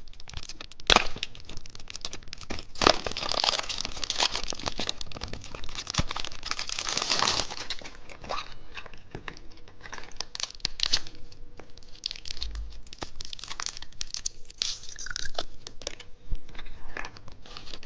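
Plastic candy wrapper being crinkled and torn open on a cookie egg candy, with irregular rustles and crackles that are busiest in the first half and sparser later.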